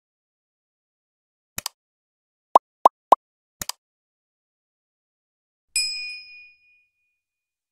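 A short run of electronic sound effects over dead silence: a double click, three quick rising blips, another double click, then a single bright bell-like ding near the end that rings out.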